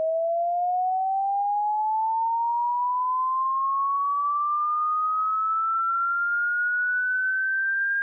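Synthesized pure sine-tone sweep, the 'painful sound' effect, gliding slowly and smoothly upward in pitch from a middling tone to a high one at a steady, loud level.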